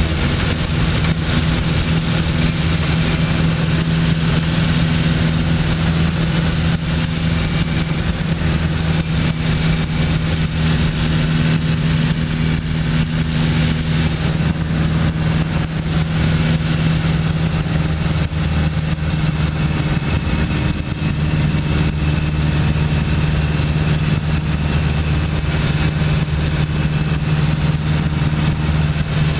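Light propeller airplane's engine and propeller running steadily at power, heard from inside the cockpit during the takeoff run and climb-out.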